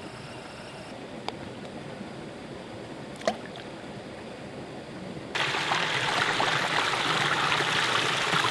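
Shallow mountain stream running over rocks, a soft steady babble with a couple of faint clicks. About five seconds in it switches abruptly to a louder, brighter rush of water tumbling close by.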